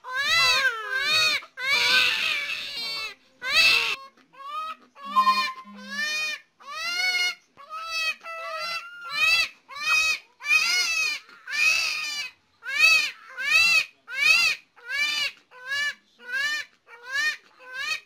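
Twin babies crying together in short, high, rising-and-falling wails that overlap and repeat about three every two seconds, with a brief lull about four seconds in.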